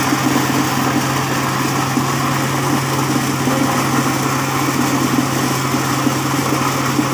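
An engine-driven corn sheller with a double suction blower running steadily while cobs are fed in. It makes a constant hum with a dense rattle of kernels being stripped and blown through the machine.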